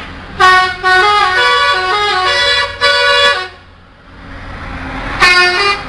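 Bus telolet horn, a multi-note musical horn, playing a stepping tune for about three seconds, then one more short blast near the end.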